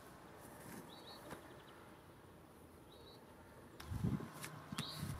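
Faint outdoor ambience with a small bird chirping briefly three times. From near the end, louder low rustling and knocks come from a gloved hand handling the ear defender of a forestry safety helmet close to the microphone.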